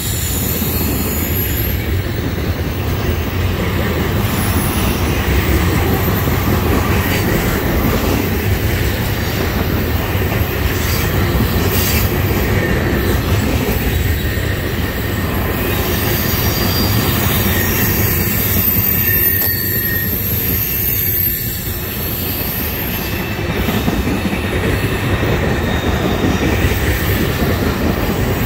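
Loaded freight cars of a trash train rolling past on steel rails: a steady rumble of wheels on track, with a thin, high-pitched wheel squeal that comes and goes.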